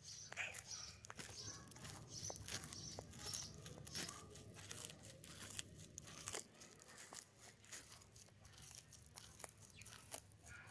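Tortoise biting and tearing fresh green leaves and stems: faint, irregular crunching clicks.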